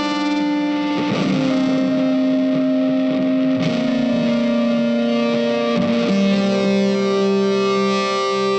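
Background music: an electric guitar with distortion playing long held notes, each changing pitch every second or two.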